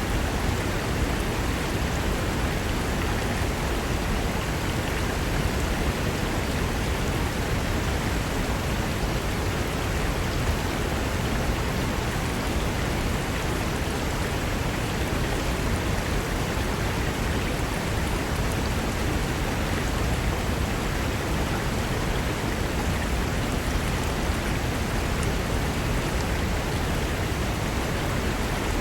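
Fast mountain river rushing over rocks: a steady, unbroken sound of water.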